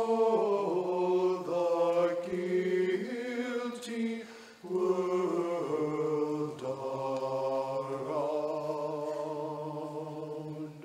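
Mixed church choir singing sustained chords in the closing bars of an anthem, with a short break for breath about four and a half seconds in, then a long held final chord that stops at the very end.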